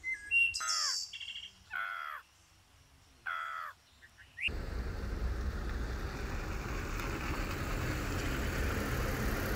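Sandhill cranes calling: three loud, harsh calls, each falling in pitch, in the first few seconds. About halfway through, the birds give way to a steady outdoor rushing noise.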